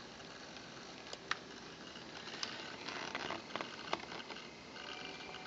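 A few sharp, separate clicks from a laptop's touchpad buttons over a steady low hiss, as the Windows Me Start menu is worked.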